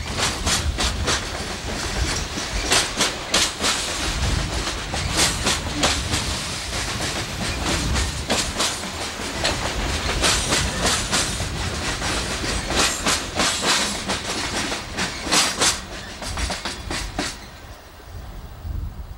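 Loaded coal train cars rolling past, their wheels clacking over the rail joints in quick, irregular clicks. The sound fades away near the end as the last car passes.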